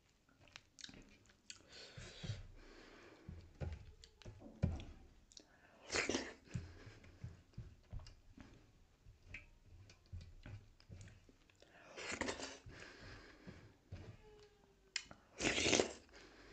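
Close-up eating of dhido (stiff grain dough) with sisnu (stinging-nettle soup) by hand: wet chewing with many small clicks. Three louder slurps, each about half a second long, come about six, twelve and fifteen and a half seconds in.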